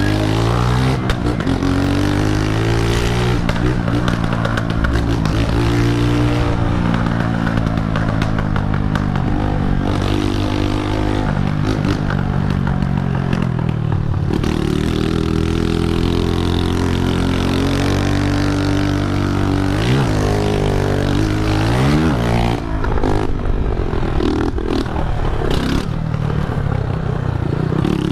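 Honda CG125 single-cylinder four-stroke motorcycle running loud through a straight-through exhaust. Its revs climb and drop as it rides through the gears, with two quick rev rises in the last third.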